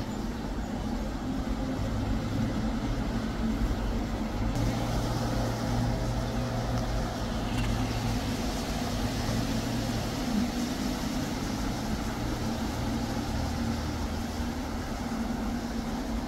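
Strong wind gusting across the microphone: a steady rushing noise with an uneven low rumble.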